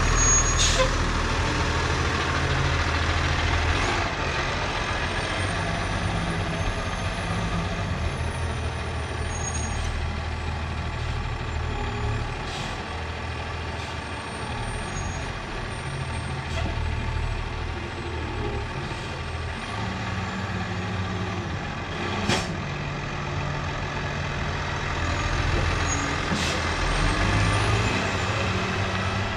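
Heavy diesel machinery working at a hay bale squeeze-loading job, its engine speed rising and falling. A few short hisses come through, and there is one sharp knock about 22 seconds in.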